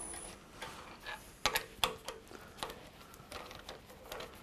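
Scattered sharp metal clicks and knocks from the lathe's chuck being worked with its red-handled chuck key, the two loudest about a second and a half in.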